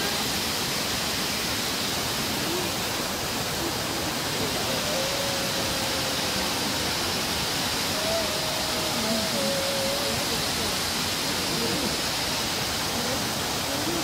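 Steady rush of Shirahige Falls, water pouring down the cliff face into the river below. Faint voices come through now and then.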